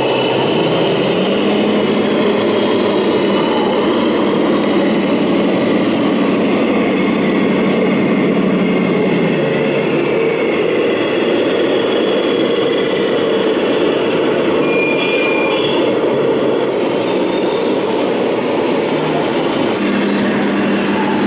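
Engine sound from the loudspeakers of radio-controlled model trucks as they drive, a steady low diesel-like hum that stops about nine seconds in and starts again near the end, over constant dense background noise.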